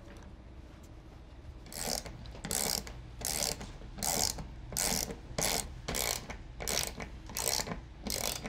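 Ratcheting socket wrench tightening lag screws, the ratchet clicking in short bursts on each back-stroke. About ten bursts come in a steady rhythm, roughly one every three-quarters of a second, starting about two seconds in.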